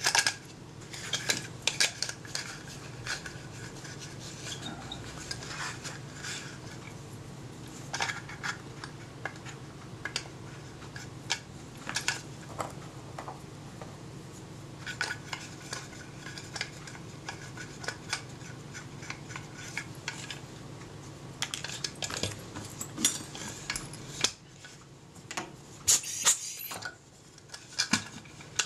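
Scattered clicks, knocks and scrapes of hands working inside a wooden box camera, freeing an old film spool with metal ends on a wooden spindle. A low steady hum runs underneath and stops about 24 seconds in.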